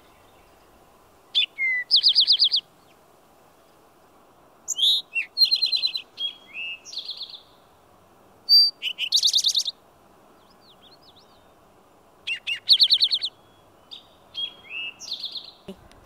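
Eastern towhee singing its 'drink-your-tea' song several times: one or two short notes followed by a fast buzzy trill, with other short chirps between the songs, over a faint steady hiss.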